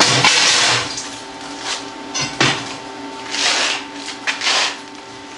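Steel sprocket pieces scraping and clanking as the plasma-cut centre is worked out of the ring: a long scrape at the start, a sharp clank about halfway through, then more scraping.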